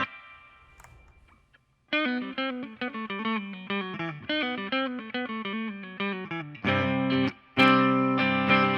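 Electric guitar fitted with Seymour Duncan Antiquity pickups, with the neck and bridge pickups swapped between positions. A chord rings and fades, a picked single-note line starts about two seconds in, and strummed chords follow near the end.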